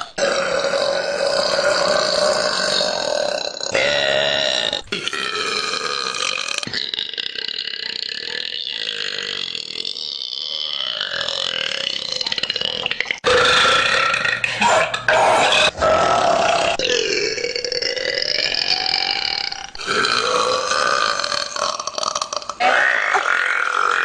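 Women burping: a run of long, drawn-out belches, one after another, with abrupt cuts from one to the next about eight times.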